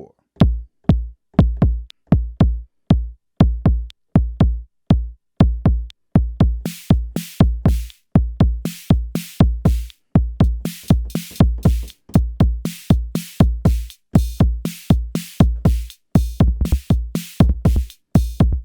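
Arturia DrumBrute Impact analog drum machine playing a beat as it is recorded live into its sequencer. A repeating pattern of low, deep drum hits comes first, and bright, hissy hits join it about six seconds in.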